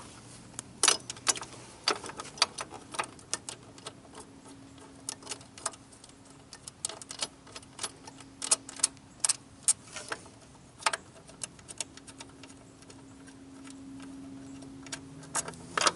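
Irregular metal clicks and taps of hand tools and bolts being worked loose from a motorcycle seat latch assembly. The clicks come at uneven intervals, some sharp and loud.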